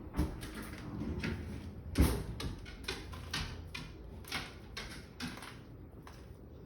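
Cutlery and kitchenware clinking and knocking: a string of irregular sharp clicks, the loudest about two seconds in.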